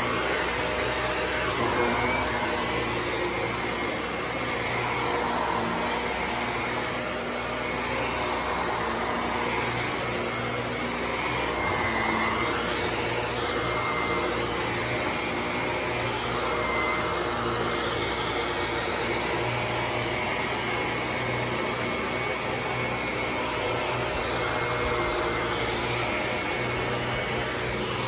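Shark upright vacuum cleaner running steadily as it is pushed over thick carpet, its motor noise swelling and easing slightly with the strokes.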